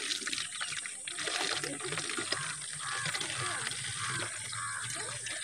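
Liquid pesticide trickling as it is poured from a steel can into the bottle of a hand pressure sprayer.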